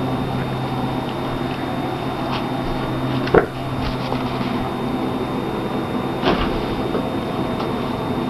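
A cat knocking an empty cardboard 12-pack box about, giving a few short cardboard knocks, the loudest about three seconds in and another about six seconds in, over a steady background hum.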